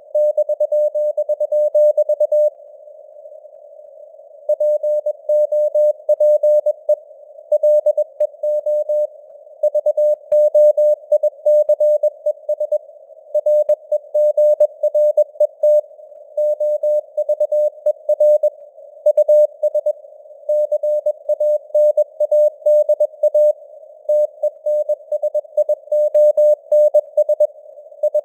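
Morse code (CW) sent at 21 words per minute: a single mid-pitched tone keyed in dots and dashes, with short gaps between letters and words. Simulated radio hiss sits around the tone, and there is a longer pause of about two seconds a few seconds in.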